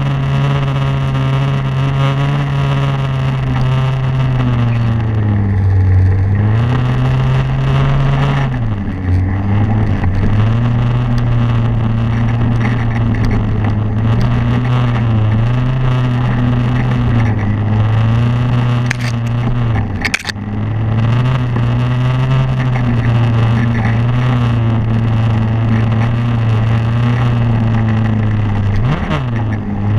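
Snowmobile engine running steadily, its pitch sagging and recovering several times as the throttle is eased and opened again, with a brief sharp break about twenty seconds in.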